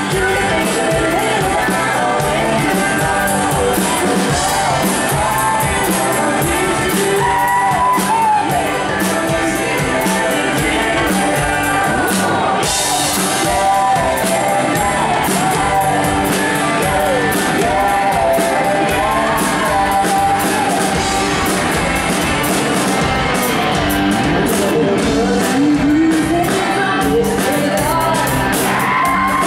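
A live country-rock band playing loud through a PA: drums, electric guitars and fiddle, with voices singing over them.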